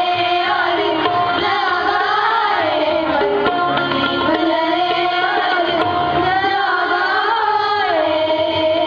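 Schoolchildren performing a raag: girls singing a winding, ornamented melody with piano accompaniment, continuous and loud.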